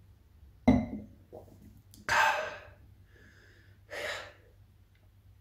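A man gasping and exhaling hard after a gulp of red wine. There are three breathy bursts: a sudden one under a second in, a longer rasping exhale about two seconds in, and a shorter one around four seconds.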